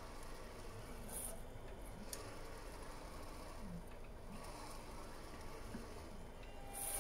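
A 3D printer running: its stepper motors whir with short rising and falling pitch glides as the print head moves, over a steady hum. There are two brief high-pitched whines, about a second in and near the end.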